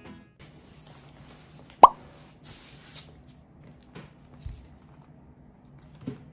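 A single short pop with a quick rising pitch about two seconds in, then soft paper rustles as the pages of a thick paperback textbook are handled and opened.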